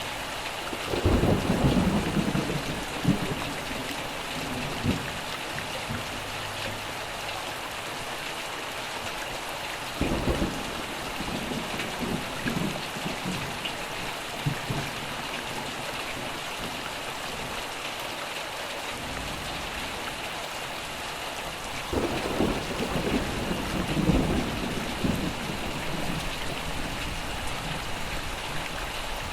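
Steady heavy rain falling, with thunder rumbling three times: about a second in, about ten seconds in, and again for several seconds near the end.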